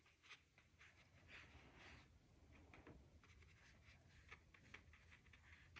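Near silence, with faint soft strokes and dabs of watercolor brushes on paper and a few tiny ticks.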